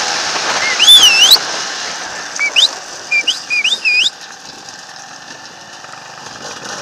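High, wavering whistles: one long wavy note about a second in, then four or five short rising notes between about two and a half and four seconds in. A dirt-bike engine runs quietly underneath.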